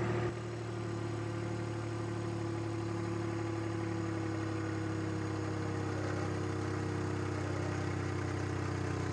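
Turbocharged John Deere 1025R's three-cylinder diesel engine idling steadily under load as the tractor pulls hard against a chained load cell in four-wheel drive.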